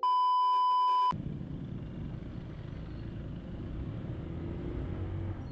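A steady electronic beep about a second long, cutting off abruptly, followed by a steady low rumble of vehicle and wind noise.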